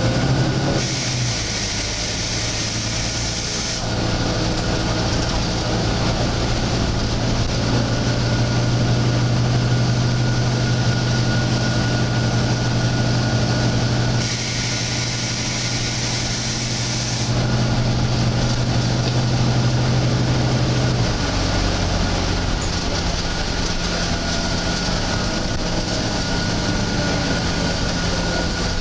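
Volvo B9TL double-decker bus engine running with a steady low drone, its note dropping about three quarters of the way through. Twice, for about three seconds each, a strange hiss of air rises over it, once near the start and once about halfway.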